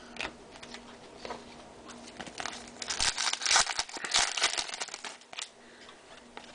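Trading-card pack wrapper crinkling and being torn open, a dense crackle for a couple of seconds in the middle, with light rustling of cards around it.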